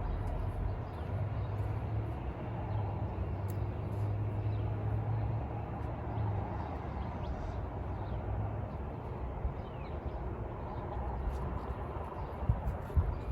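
Steady outdoor background with a constant low rumble and a few faint bird chirps; a couple of sharp knocks near the end.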